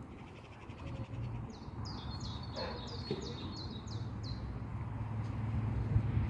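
A songbird singing a phrase of about eight quick, high, downward-sweeping notes, over a low steady background rumble.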